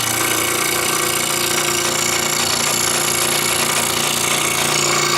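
Scroll saw running steadily, its reciprocating blade cutting through a thin wooden puzzle board.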